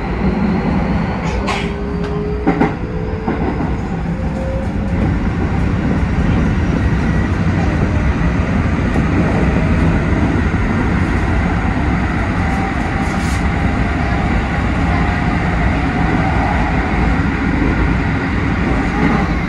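Keikyu 1000 series electric train running, with the steady rumble of wheels on rail and the whine of its Mitsubishi VVVF inverter and traction motors rising in pitch over the first few seconds as the train accelerates. Two sharp clicks sound in the first three seconds.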